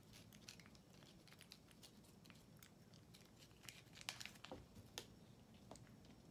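Faint, quick wet clicks of a kitten licking and chewing Churu treat paste from its plastic tube, with a few louder clicks about four to five seconds in.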